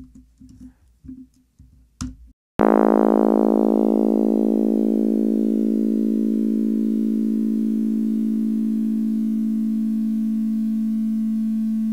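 Discrete-summation-formula synthesized tone from an Octave script: a 220 Hz carrier with upper sidebands spaced 55 Hz apart. It starts abruptly about two and a half seconds in, rich in overtones, and its upper partials fade steadily until mostly the plain 220 Hz carrier remains. A few faint keyboard clicks come before it.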